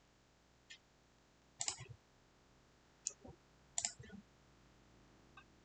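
A handful of faint computer mouse clicks, irregularly spaced, some in quick pairs, over faint room tone.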